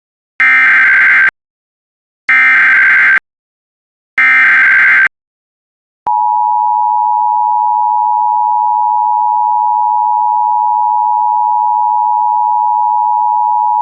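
Emergency Alert System opening tones: three harsh buzzing bursts of SAME header data, each about a second long with short gaps between, then the steady two-tone EAS attention signal (853 and 960 Hz), starting about six seconds in and held for about eight seconds.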